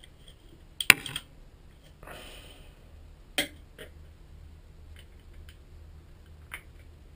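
Small screwdriver prying at the plastic case of a USB wireless network adapter. A sharp click about a second in, a short scrape, another click, then a few lighter ticks.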